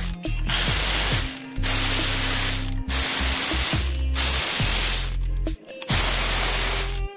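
Background music with a deep bass that slides down in pitch several times, under about six hissing bursts a second or so long, each starting and stopping sharply, like a spray or an air blower.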